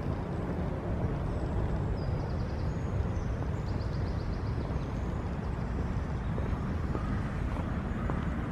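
Outdoor ambience: a steady low rumble with faint bird trills about two to four seconds in.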